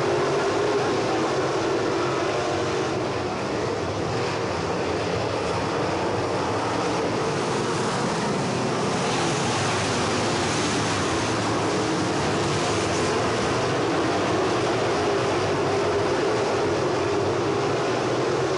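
A field of crate-engine dirt late model race cars running together, their V8 engines making one steady, dense drone.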